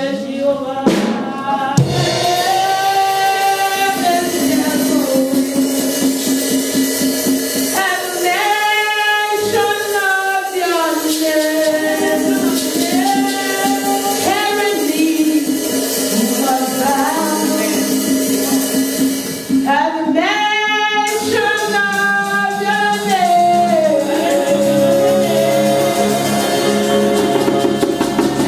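Gospel-style praise singing: a woman's lead voice through a microphone with a small group of singers, over rhythmic hand percussion.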